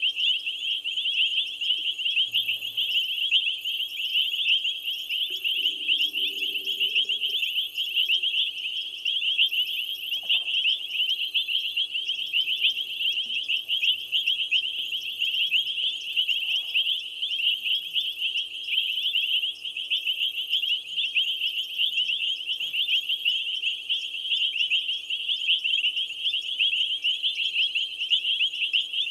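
Steady night chorus of calling insects and frogs at a waterhole: a dense, shrill trilling throughout, with a higher pulsed buzz repeating about once a second that drops out near the end.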